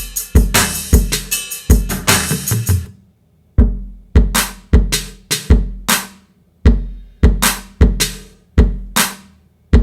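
Modern R&B drum beat: kick drum and snare hits in a steady groove. The fuller pattern cuts out about three seconds in, then the beat comes back sparser, with a brief break in the middle.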